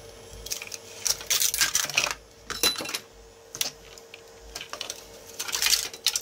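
3D-printed plastic parts being scraped and popped off a printer's glass bed with a metal scraper and lifted away by hand: irregular clicks, knocks and short scrapes, over a steady faint hum.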